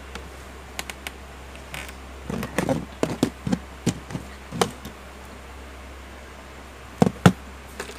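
Phone parts and a plastic-handled pry tool being handled and set down on a rubber bench mat: scattered light taps and knocks, busiest in the middle, with two sharp knocks near the end, over a steady low hum.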